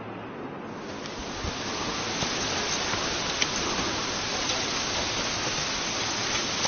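Steady rushing noise of running water, swelling in about a second in, with a few faint clicks.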